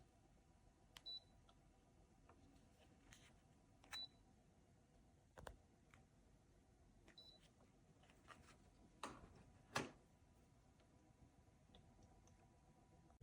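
Faint, short, high-pitched electronic beeps, one about every three seconds, among a few soft clicks and taps, the loudest two close together near the end.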